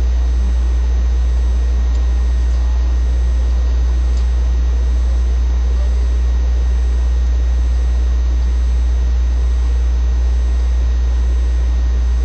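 A loud, perfectly steady low hum with hiss over it, typical of recording-equipment noise; any conversation is at most faint beneath it.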